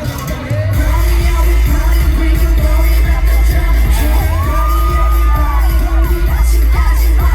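Loud live K-pop dance track through a concert PA, with heavy bass, and fans screaming over it.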